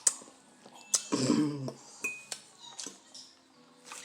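An eating utensil clinking against a dish of noodles: three sharp clicks, with a short voice-like sound, such as a murmur while eating, just after the second one.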